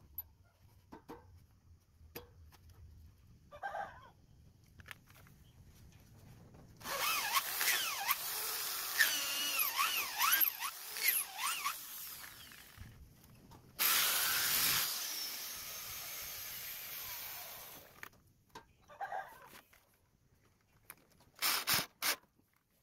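Electric drill boring into palm wood in two runs of several seconds each, the motor's pitch wavering up and down as the trigger is worked; the second run fades away at its end. A few sharp knocks come near the end.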